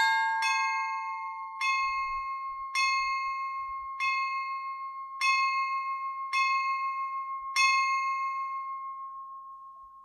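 Church bell perezvon for the blessing of water: one small bell struck again and again, two quick strokes at the start, then slow, even strokes a little over a second apart. The last stroke comes near the end and its ring fades away.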